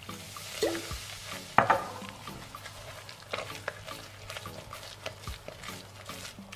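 Water poured into a glass bowl of crumbly potato-and-flour mixture, followed by a silicone spatula stirring and scraping the wet dough against the glass in short repeated strokes. There is one sharp knock about one and a half seconds in.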